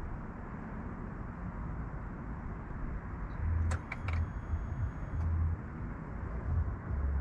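Steady outdoor background rumble in a parking lot. Irregular low gusty thumps start about three and a half seconds in, and a few short sharp clicks come around four seconds.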